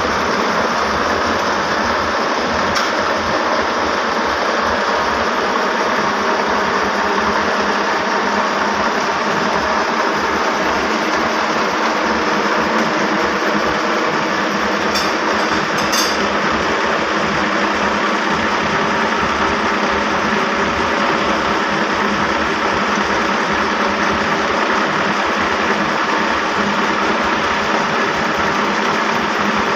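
Powerloom mill machinery running: a loud, steady, unbroken mechanical din with no pauses.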